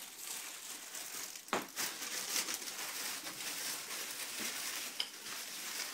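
Plastic bags and crisp, dry flatbread crinkling and rustling as they are handled, with a sharp crack about a second and a half in and another near the end.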